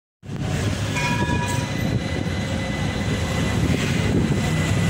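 Electric street tram running alongside a stop: a steady low rumble with a thin high whine throughout, and a few brief higher tones about a second in.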